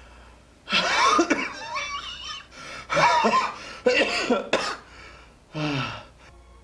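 A sick man coughing and groaning in distress, in four bouts.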